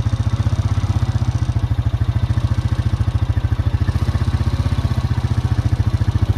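Engine of the vehicle he is riding on running steadily close by, a low, even, rapid chugging with no change in speed.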